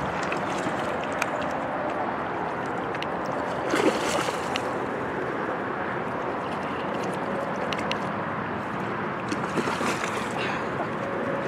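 A hooked fish splashing at the water's surface as it is brought into a landing net, with splashes about four seconds in and again near the end, over a steady rush of wind and water.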